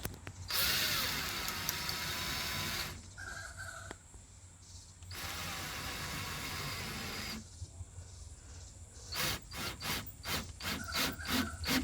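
Cordless drill-driver running in two spurts of about two seconds each, driving the screw of a hose clamp over a leaking water pipe, then a quick run of clicks and knocks as the clamp and tool are handled.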